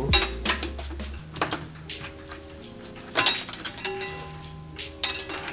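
Irregular metal clicks and clinks of a ratchet and socket extension working on the exhaust manifold nuts of a Nissan RB20DET engine, one sharp clank about three seconds in, over background music.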